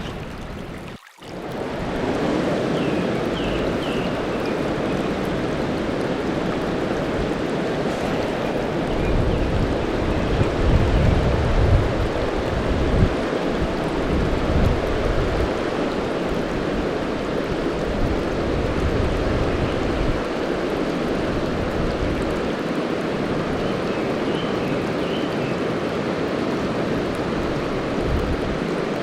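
Mountain river rushing over rocks: a steady hiss of flowing water, with bursts of low rumble on the microphone about ten seconds in and a brief drop-out about a second in.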